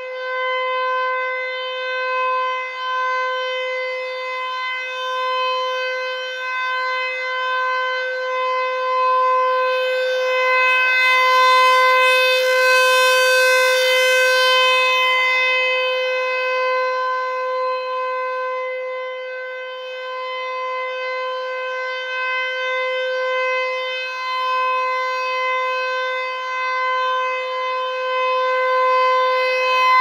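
American Signal T-128 rotating outdoor warning siren sounding the steady Alert signal, one held tone that does not rise or fall in pitch. Its loudness swells and fades as the horn turns, loudest about halfway through and rising again near the end.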